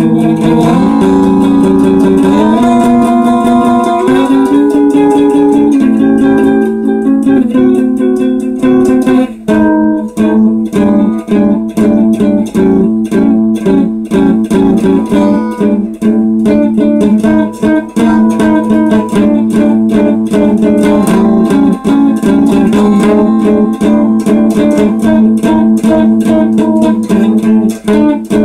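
Electric guitar played through a small amplifier: held notes that slide between pitches, then, about nine seconds in, fast picked notes in a steady run.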